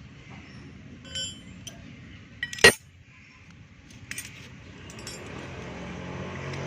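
Hand tools clinking against metal as the 8 mm bolts on a scooter engine's cam-chain sprocket are worked loose: a few short ringing clinks, with one sharp, much louder metal clank about two and a half seconds in.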